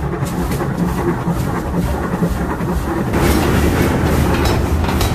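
750 kg air forging hammer and forge machinery running with a heavy, continuous rumbling clatter and scattered metallic clanks while a hot bearing ring blank is worked; the noise gets louder about three seconds in.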